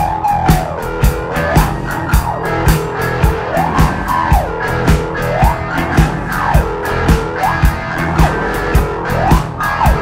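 Live rock band playing an instrumental passage: electric bass, electric guitar and a steady drum beat, with a sliding tone that sweeps up and down over and over.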